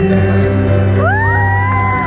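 Music with a steady bass line and a singing voice that slides up about halfway through and holds one long high note.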